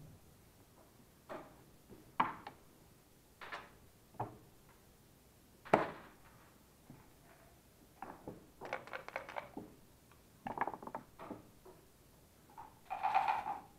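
Scattered light knocks and clatter in a quiet room. The loudest is a single sharp knock about six seconds in, as a plastic water bottle is set down on the wooden table. A rattly stretch follows a couple of seconds later, and a brief louder noise comes near the end.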